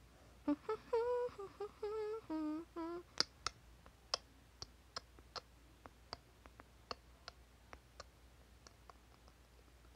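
A person humming a short wavering tune for about two and a half seconds, followed by a string of light sharp clicks, roughly one or two a second, growing fainter.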